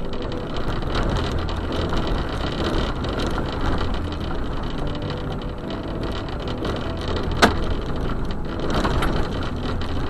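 Road noise heard from inside a truck driving on a gravel road: tyres rolling over gravel with a steady low drone, and one sharp click about seven and a half seconds in.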